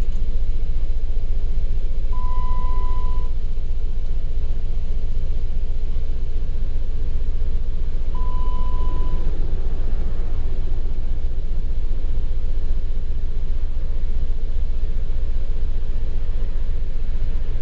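The 2011 Jeep Wrangler's 3.8 L V6 running steadily with a low rumble, just after starting for a cam/crank relearn; the engine has misfire and camshaft position sensor codes. Two electronic beeps, each about a second long, sound about 2 and 8 seconds in.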